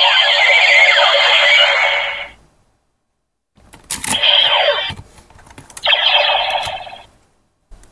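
Toy Decadriver henshin belt playing the end of its electronic transformation sound effect, with sweeping tones, until about two and a half seconds in. After a pause, the side handles click as they are pulled to open the buckle, and the belt plays two more short electronic sound effects.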